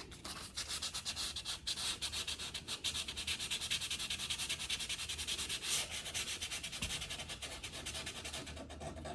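Sandpaper rubbed by hand over a primed MDF drawer front in rapid, even back-and-forth strokes, smoothing the primer between coats.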